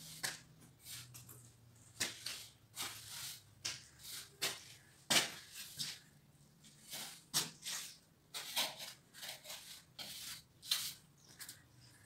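A run of short, irregular gritty scrapes and rubs, one every half-second to second, as of something rough dragged over concrete or mortar.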